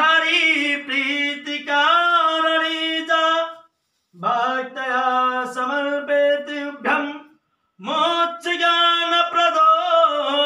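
A man chanting a Hindu devotional hymn in a sung melody, holding steady notes in three long phrases with short breaks between.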